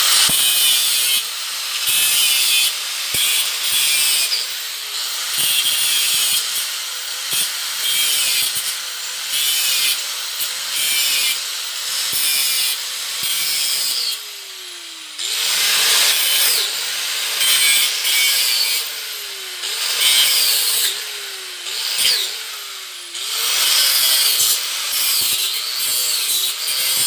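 Electric angle grinder with a cutting disc slicing off the protruding ends of metal bolts: a high whine and grinding in repeated passes, the motor's pitch sagging each time the disc bites and recovering between cuts. About halfway through it winds down briefly, then starts again.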